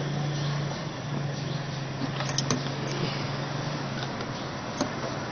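A steady low hum over a background hiss, with a few light clicks and knocks of hands handling plastic hoses and clips in a car's engine bay, a cluster about two and a half seconds in and one more near the end.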